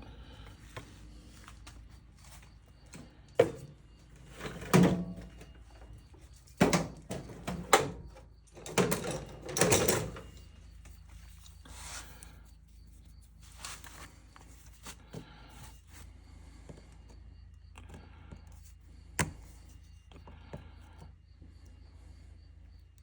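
Workbench handling sounds: a cluster of sharp knocks and short scrapes from about 3 to 10 seconds in as tools and small metal parts are handled, then a few quieter taps and one sharp click near the end.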